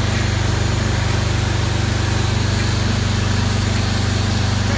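Wet shotcrete spraying rig running: a steady low machine drone under a constant hiss as wet concrete is blasted from the hand-held nozzle onto a wall.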